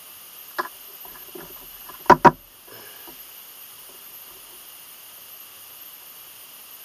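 Two quick sharp snaps close together about two seconds in, as black waxed thread is pulled tight through the stitching holes of a hand-sewn leather sheath. A smaller click comes earlier, over a faint steady hiss.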